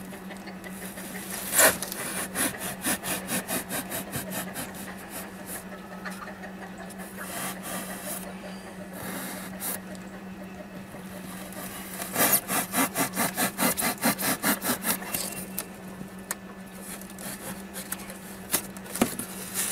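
Knife blade sawing back and forth through styrofoam to trim a cut-out slot: two runs of quick rasping strokes, about four a second, a couple of seconds in and again past the middle, with softer scraping between them.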